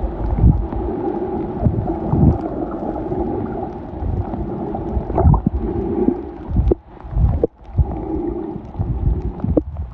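Underwater recording: a steady droning hum of boat machinery carried through the water, over low gurgles and thumps of water moving past the microphone. The sound drops out briefly twice about two thirds of the way through.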